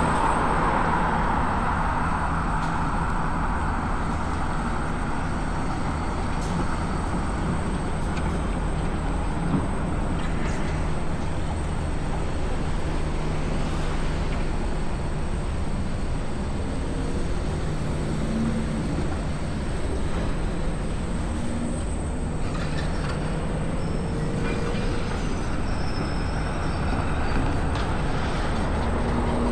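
Steady rush of wind and rolling noise while riding an electric scooter, with a constant low rumble.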